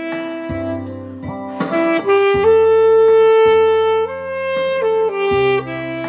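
Alto saxophone playing a slow melody over a backing track with a bass line, holding one long note through the middle before stepping to new notes near the end.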